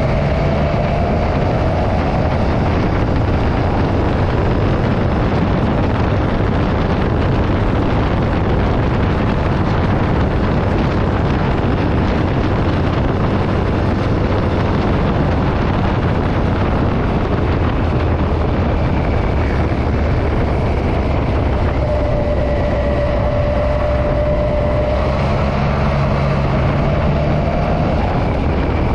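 Motorcycle cruising steadily in sixth gear: a constant engine note under heavy wind rush on the microphone, its pitch shifting slightly near the end.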